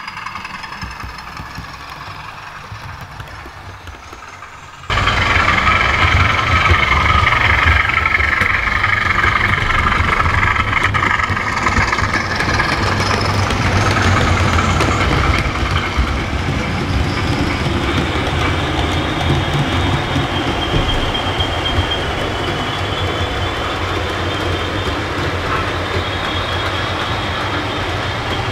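OO gauge model trains running on DC power: small electric motors whining and wheels rumbling and clicking along the track. The sound jumps suddenly louder about five seconds in.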